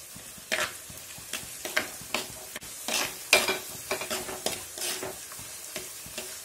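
A metal spoon stirring and scraping chopped tomatoes and onions sautéing in oil in a black pot. The strokes are irregular, clattering over a faint sizzle, with the sharpest one a little past the middle.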